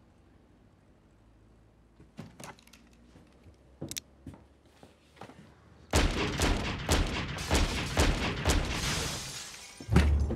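Film-soundtrack pistol fire: a few sharp clicks and knocks, then from about six seconds in a rapid run of loud handgun shots, ending in a heavy low thump near the end.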